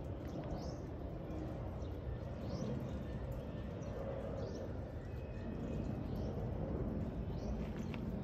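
Outdoor ambience: a steady low rumble, with a few short, high bird chirps scattered through.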